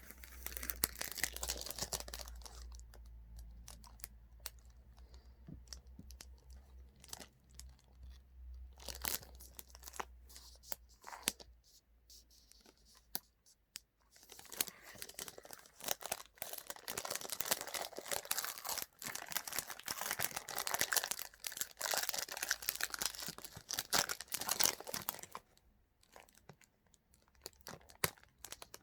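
Feastables snack wrapper being torn open and crinkled by hand, in crackly bursts at the start and again through the middle to near the end.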